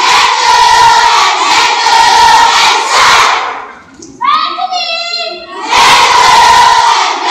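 A group of students shouting and cheering together. A little past halfway the group noise breaks off and a single voice calls out for about a second and a half, then the group shouts again.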